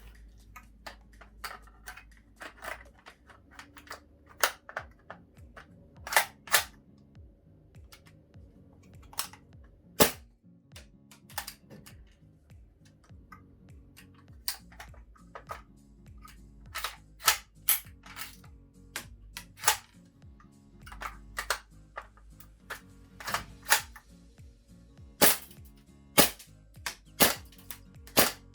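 GHK AKMSU gas blowback airsoft rifle firing single shots at irregular intervals, each a sharp crack, some louder than others, with fainter clicks in between.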